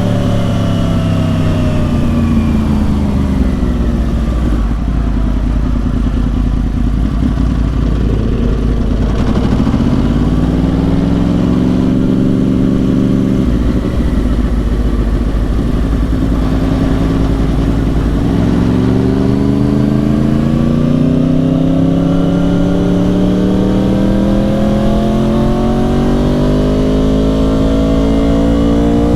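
2010 Yamaha R1's crossplane inline-four through dual Yoshimura exhausts, heard while riding: the engine note falls as it slows off the throttle, picks up again briefly, eases, then climbs in a long steady rise under acceleration, over low wind and road noise.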